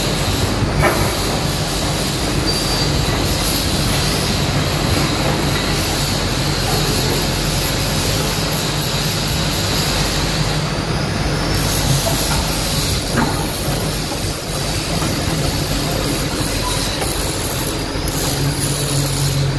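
Caterpillar 320D excavator's six-cylinder diesel engine running steadily, with a steady high whine over the engine.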